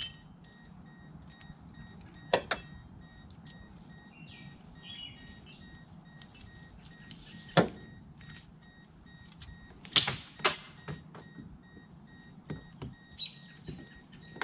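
Tie-down strap and its buckle being worked to secure a kayak on a car roof: a run of sharp clicks and knocks, the loudest pair about ten seconds in, with a faint steady beeping underneath.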